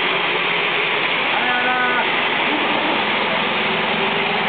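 Miniature railway train running, heard as a steady rushing hiss with no breaks.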